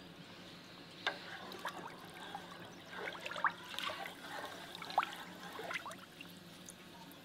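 Wooden spoon stirring a large aluminium pot of milk: quiet sloshing with scattered small liquid plops and clicks.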